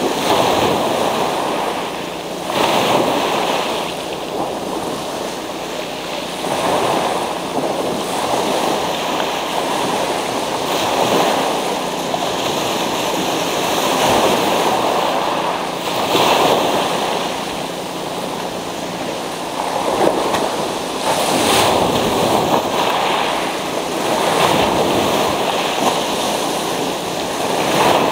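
Sea surf breaking and washing up a pebble beach, with a loud surge every few seconds over a steady wash of foam.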